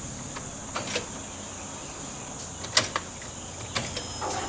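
Ignition key and relay clicks, then the electric fuel pump of a 2000 Ford F150 whining briefly as it primes the fuel system and builds pressure after a fuel filter change.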